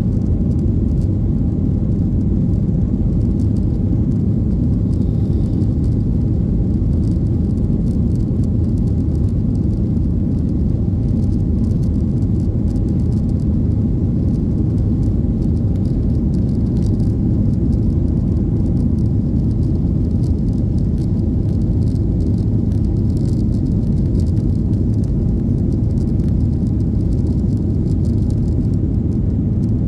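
Cabin noise of a Boeing 737-800 climbing out after takeoff, heard from a window seat over the wing: its CFM56-7B turbofans and the rushing airflow make a steady low rumble that does not change.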